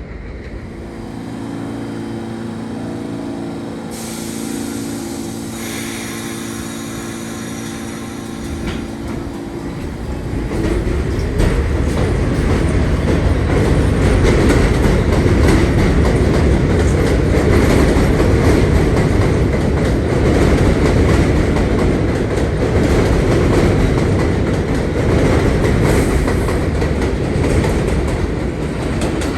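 New York City subway train: a steady hum with a high whine, then from about ten seconds in a much louder rumble and clatter of steel wheels on rails as a train runs close by.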